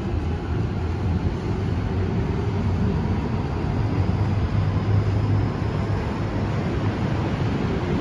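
MTR K-Train (Hyundai Rotem electric multiple unit) pulling out of an underground station, heard through the platform screen doors as a steady low rumble of wheels and running gear. It swells to its loudest about four to five seconds in, then eases as the train moves off.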